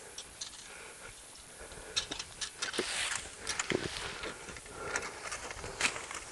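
Dry pine needles rustling and crackling as bunches of pine straw are handled and stuffed into a box baler, a quick run of small crunches that starts about two seconds in.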